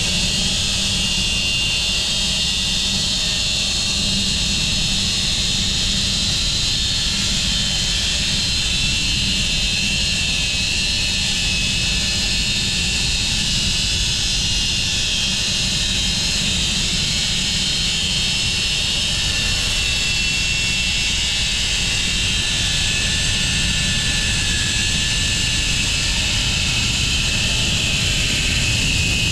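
Home-built bandsaw sawmill running steadily as its blade cuts through a cherry log, a constant high hiss and whine over a low rumble. The mill is running smoothly on replaced pillow block bearings.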